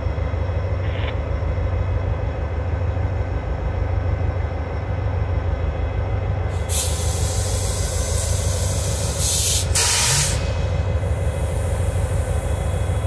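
Diesel locomotive engine running with a steady low rumble. About seven seconds in, a loud hiss of escaping air starts and lasts about three seconds.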